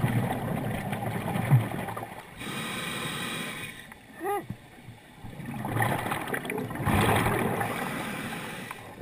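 Scuba diver breathing through a regulator underwater: a bubbling rush of exhaled air, a hissing inhale, then a short rising-and-falling squeak from the regulator and another long bubbling exhale.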